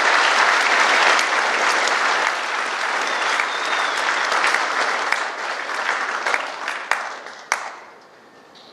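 Audience applauding, steady and loud, then thinning out near the end to a few last claps before dying away.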